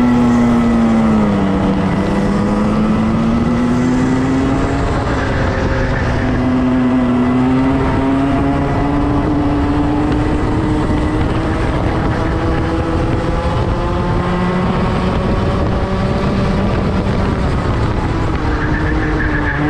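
Racing kart engine heard from on board at speed, running under load over a steady rush of noise. Its note drops about two seconds in as the throttle eases, climbs slowly along the straight, and falls again near the end.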